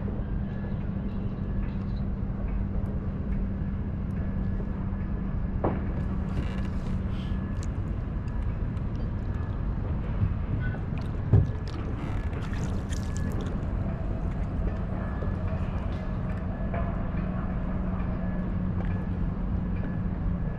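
Steady low hum and rumble with a faint steady tone, over scattered light clicks and rattles from handling fishing tackle on a kayak; one sharp knock about eleven seconds in.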